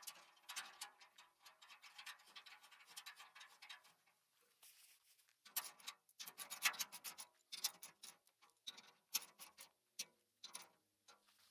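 Socket ratchet wrench clicking as a bolt on the shredder hopper's handle bar is tightened, the clicks coming in runs of quick strokes with short pauses between them.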